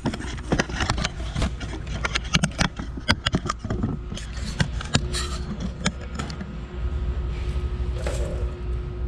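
Fingers rubbing and picking leftover badge adhesive foam off a truck's painted body panel: a rapid, irregular run of short scrapes and clicks over a steady low hum.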